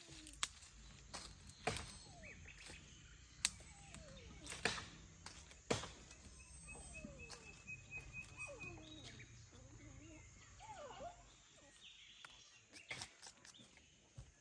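Sharp snaps of leaf stalks being broken off a leafy branch by hand, roughly one a second through the first half, with birds calling.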